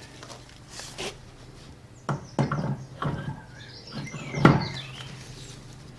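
A few knocks and clunks as a lawn tractor's front wheel is handled and slid onto its stub axle, the loudest about four and a half seconds in.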